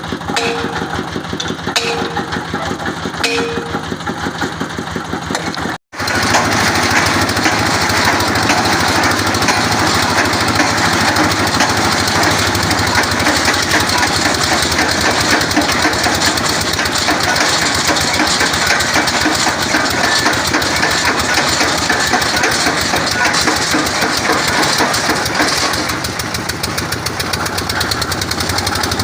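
Engine of a water-well boring rig running steadily, with a short squeak repeating about every second and a half in the first few seconds. It cuts out for an instant about six seconds in, then runs on louder.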